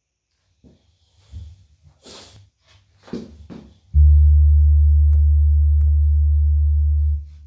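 Red four-string electric bass: a few soft knocks and string scrapes from the hands, then about four seconds in a single low note is plucked and rings steadily for about three seconds before it is cut short.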